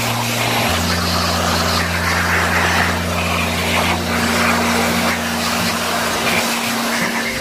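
Handheld electric blower running at full power: a loud, steady rush of air over a low motor hum, blowing dust out of an electric fan's housing. The hum shifts to a slightly different pitch about a second in.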